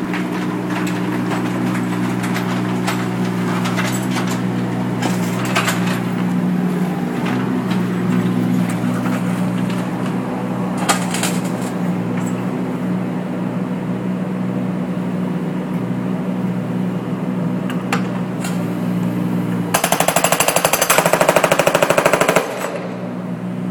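Jackhammer hammering on a LINE-X-coated cinder block in one fast, evenly pulsing burst of about two and a half seconds near the end. Under it, a machine drones steadily throughout.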